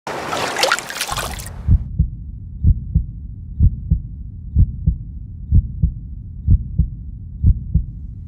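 A burst of hissing noise cuts off about a second and a half in, giving way to a heartbeat sound effect: low paired thumps, lub-dub, about once a second over a low rumbling bed.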